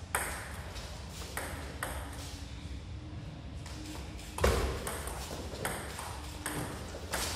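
Table tennis ball clicking off the paddles and the table: a few spaced taps, then a louder knock about four and a half seconds in, then a quicker rally of clicks.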